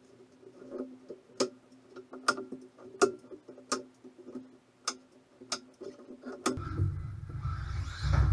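A series of sharp knocks and clicks, roughly one a second, from hand work on the plywood boards. About six and a half seconds in, the WLtoys A979 RC truck's electric motor and tyres start running over the plywood floor, getting louder near the end.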